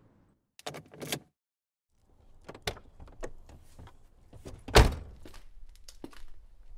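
Door sound effects: a couple of sharp clicks, a brief silence, then a run of small knocks and clicks with one heavy thud of a door about five seconds in.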